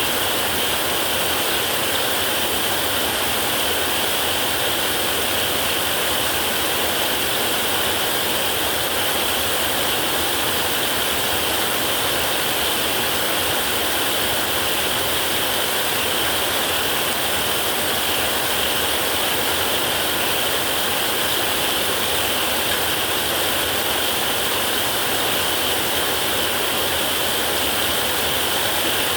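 Heavy rain falling steadily on a metal roof, an even hiss with no thunderclap.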